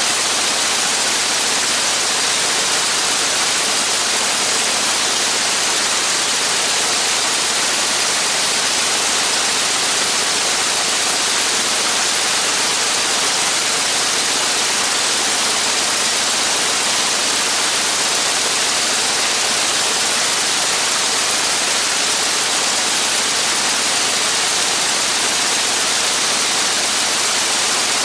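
Aircraft engine and propeller running steadily on the ground during an engine run, heard as an even, unbroken rush of noise with no clear beat or change.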